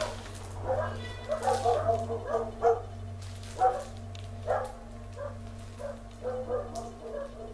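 A dog whining and yipping in short, repeated high calls, over a steady low hum.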